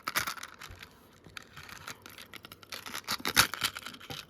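Rustling, scraping and small clicks from earrings and their packaging being handled, irregular, with the loudest click about three and a half seconds in.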